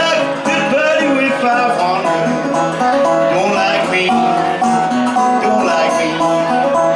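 Live solo music: a guitar played with a plucked, bluegrass-like twang, with a man singing into the microphone.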